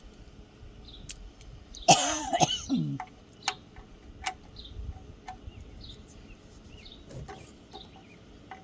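A man clearing his throat once, about two seconds in. Faint short high chirps and small clicks sound around it.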